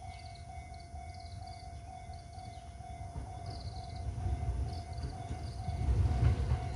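Approaching JR East 209 series electric commuter train: a low rumble that grows steadily louder over the last few seconds. Throughout, a steady, evenly pulsing ding rings out, like a level-crossing warning bell.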